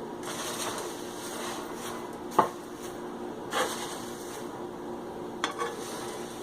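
A spoon stirring and scraping a dry mix of roasted poha, puffed rice and sev around a pan, with a sharp clink of the spoon against the pan a couple of seconds in and a few softer knocks after.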